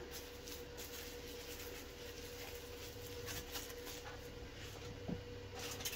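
Faint rustling and small scratchy handling sounds of plastic cling wrap being wrapped around meat, over a faint steady hum.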